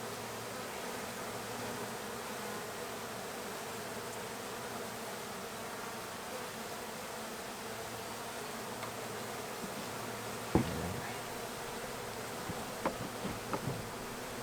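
Honey bees from a large, opened-up colony buzzing steadily in a dense hum. A single sharp knock sounds about ten seconds in, followed by a few lighter clicks near the end.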